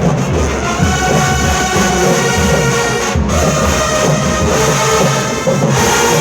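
Marching band playing: the brass section holds loud, sustained chords over a steady beat from the drum line.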